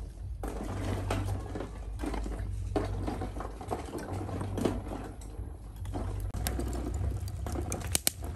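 Thin wooden sticks clattering and knocking irregularly as they are stacked by hand into a clay charcoal stove, over a low steady rumble.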